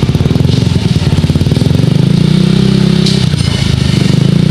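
Yamaha NMAX V2 scooter's single-cylinder engine running through a Vmax Racing aftermarket power pipe exhaust, held at a steady raised speed of about 3,000 RPM for a decibel test. The pitch steps up slightly about two seconds in and then holds.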